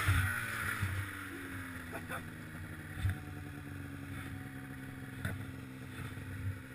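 1997 Polaris Indy RMK 700 snowmobile's two-stroke engine coming down from a rev and settling into a steady idle, with a few light knocks.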